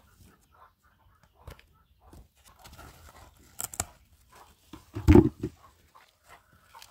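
Cucumber plants rustling and crackling as a hand works among the leaves and stems to pick. There is a sharper crackle about three and a half seconds in and a loud dull bump about five seconds in.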